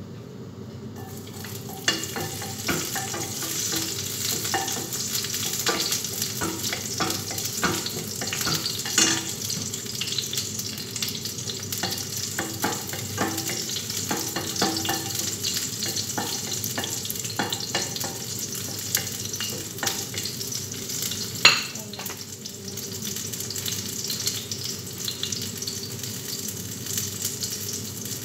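Food sizzling in a hot frying pan while it is stirred, with the spatula knocking and scraping against the pan. The sizzle starts about a second in, and there is one sharper knock about two-thirds of the way through.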